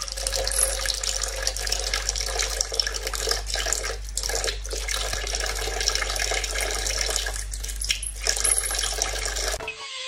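Kitchen faucet running in a thin stream that splashes into the sink, while a cat paws at the falling water. A low steady hum sits underneath. The water sound cuts off suddenly near the end.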